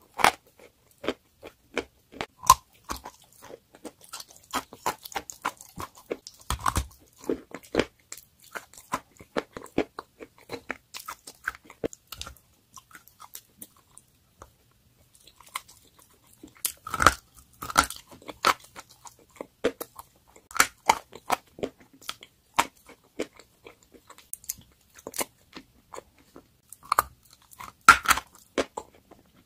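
Close-miked biting and chewing of crumbly, powdery chalk: irregular dry crunches and crackles, sparser about halfway through, with the loudest bites about two-thirds of the way in and again near the end.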